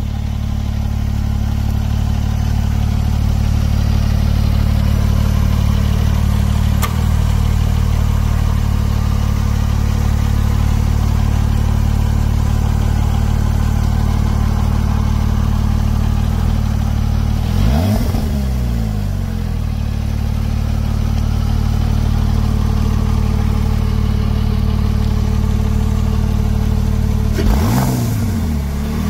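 2008 Porsche 911 Turbo's twin-turbocharged 3.6-litre flat-six running at a steady idle shortly after a cold start. The revs are blipped once about eighteen seconds in and twice near the end, rising and falling back each time.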